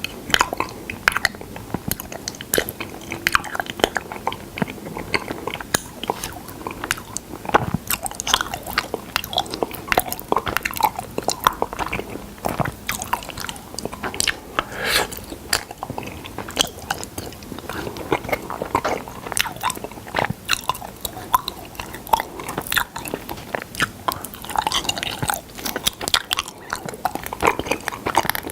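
Close-miked mouth sounds of a person biting and chewing honey: dense, irregular sticky clicks and wet smacks, several a second.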